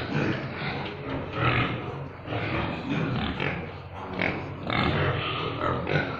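Pigs grunting in a series of short calls, about one a second, over a steady low hum.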